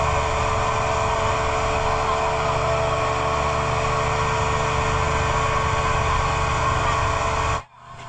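Motorboat engine running steadily under way, with water rushing along the hull. The sound cuts off suddenly near the end.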